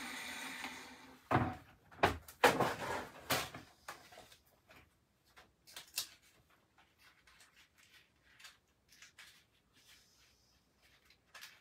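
A steady small-motor hum fades out within the first second. Then comes a burst of loud clattering knocks, followed by scattered small clicks and taps of things being handled.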